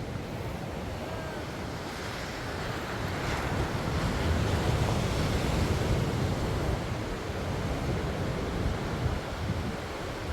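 Ocean surf washing in, with wind buffeting the microphone as a low rumble; the surf swells louder a few seconds in.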